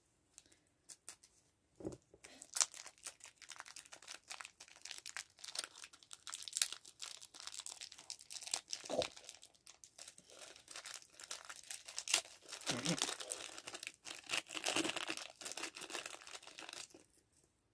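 Small packaging being crinkled and torn open by hand, including a clear plastic bag around a small capsule toy, in irregular crackles and rustles.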